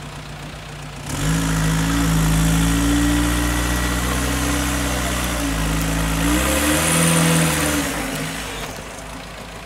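An off-road buggy's engine idles, then revs hard about a second in and holds high under load as the vehicle climbs out of a steep dirt ditch. It dips briefly, rises again, then drops back to idle near the end.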